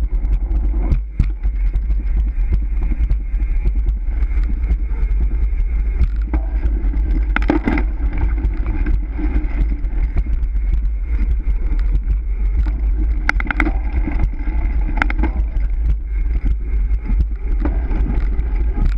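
Wind buffeting the microphone of a handlebar-mounted camera on a road bike ridden fast, with steady tyre noise on concrete and a few sharp clicks and rattles from the bike.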